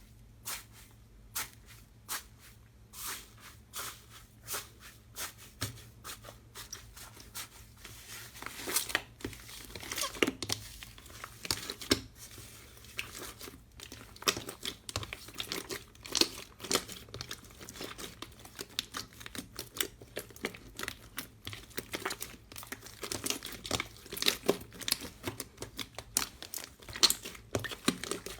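Slime being pressed and stretched by hand, giving a string of sharp crackling and popping clicks. The clicks are sparse at first and come thick and fast from about eight seconds in.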